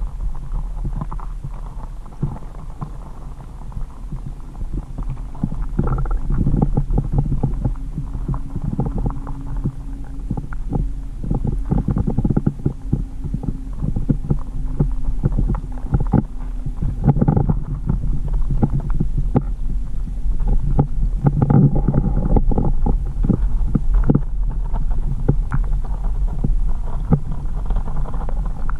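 Underwater pond sound as picked up by a submerged camera: a muffled deep rumble with dense crackling clicks, getting louder about six seconds in, and a faint steady hum through the middle part.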